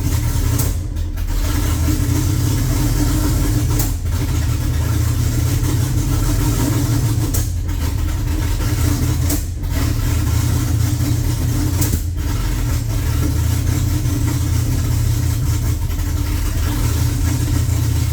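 An engine running steadily, with a few very brief dips in level.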